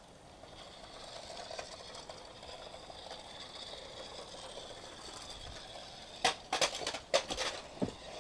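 Toy remote-control ATV quad's small electric motor and plastic gearbox whining thinly as it drives, followed about six seconds in by a cluster of sharp plastic clacks and knocks.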